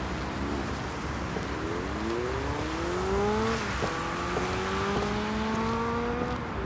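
Car engine accelerating, its pitch climbing, then dropping with a gear change almost four seconds in and climbing again more slowly, with another shift near the end.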